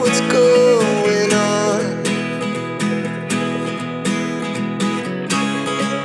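Background music led by acoustic guitar with a steady strummed rhythm, and a sliding melody line over it in the first two seconds.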